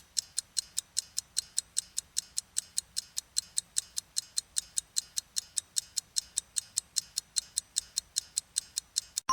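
Clock-ticking sound effect used as a quiz countdown timer: even, sharp ticks at about four a second, running steadily while the viewer is given time to answer.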